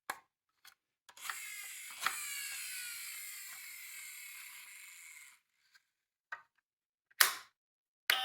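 Toy mini car rolling down a slope with a mechanical whir lasting about four seconds, its pitch falling as the car slows. A few small clicks come before it, and a sharp knock comes near the end.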